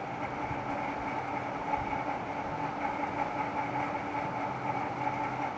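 Steady engine hum and traffic noise heard from inside a vehicle's cabin in slow-moving traffic, with a faint even drone throughout.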